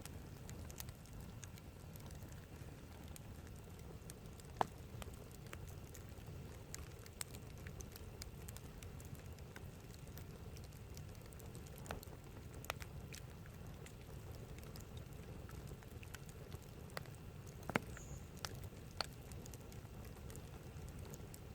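Wood campfire crackling, with scattered sharp pops over a low steady rumble. Two louder pops come about five seconds in and again about eighteen seconds in.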